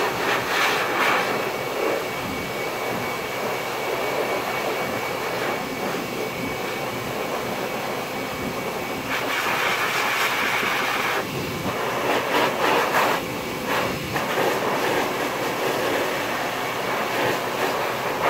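Pet grooming blower running steadily as its air nozzle blows out a rabbit's Angora wool, a constant rush of air with a faint whistle. The rush swells louder twice past the middle as the nozzle moves through the wool.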